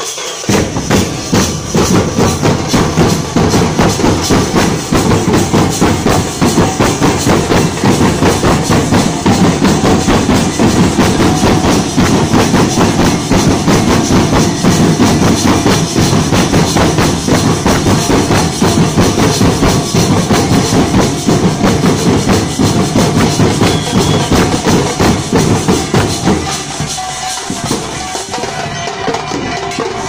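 A troupe of barrel drums beaten together in a fast, dense rhythm. The drumming eases and grows quieter a few seconds before the end.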